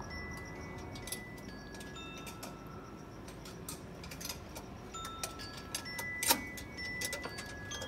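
Background music of chiming, bell-like notes, with light ticking clicks and one sharper click a little after the middle.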